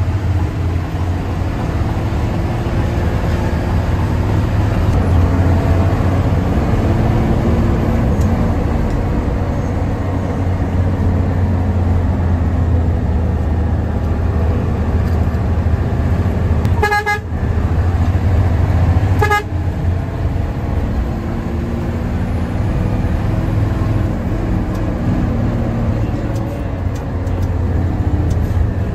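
Front-engined Hino AK diesel bus engine running under way, heard from the front of the cabin as a steady low drone whose engine tones slowly rise and fall in pitch. Two short horn toots about two seconds apart, past the middle.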